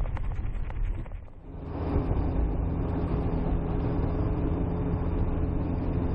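Car running on the road, heard from inside the cabin: steady engine and tyre noise with a faint constant hum, briefly dropping away a little over a second in before carrying on.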